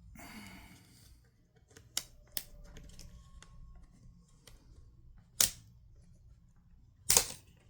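Plastic laptop screen bezel being pried off with a plastic pry tool: a brief scrape, then scattered sharp plastic clicks and snaps as the bezel clips give, two of them loud, about five and a half and seven seconds in.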